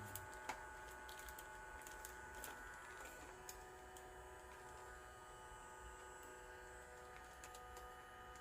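Quiet room tone: a steady electrical hum with several faint high steady tones, and a few faint scattered clicks and taps.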